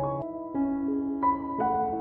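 Background music: a slow, soft piano-like keyboard melody with held notes.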